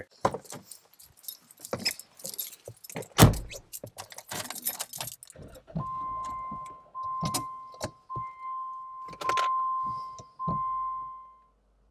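Clattering and knocks with a heavy thud about three seconds in, as someone gets into a Jeep Wrangler JKU and shuts the door. Then the Jeep's electronic warning chime sounds in five pulses of about a second each, and a low rumble begins near the end.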